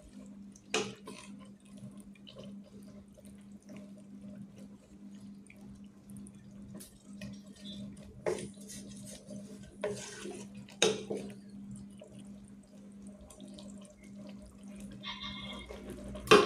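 A wooden spatula stirring thick, watery chicken gravy in an aluminium pot, with wet sloshing and a few sharp knocks and scrapes against the pot's side. A steady low hum runs underneath.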